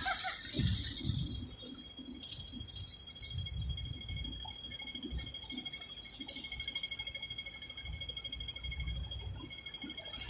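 Street ambience on a busy pedestrian crossing: a pedestrian crossing signal ticks rapidly at a high pitch, over the footsteps of a crowd and general traffic noise.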